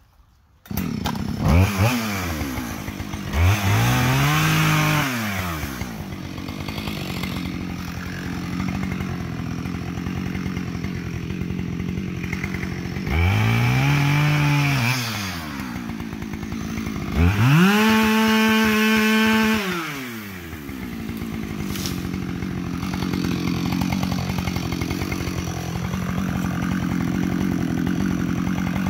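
Two-stroke chainsaw starting up about a second in, then revved several times with quick throttle blips that rise and fall in pitch. Near the middle it is held at full throttle for about two seconds, and it idles steadily in between and afterwards.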